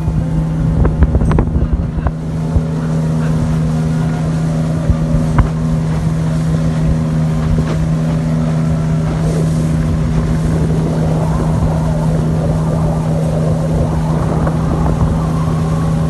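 Small open boat's motor running steadily under way, a constant drone, with wind and water noise.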